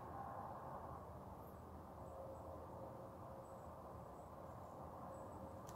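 Faint night-time outdoor hum with a few short, high insect chirps, like crickets, scattered through it.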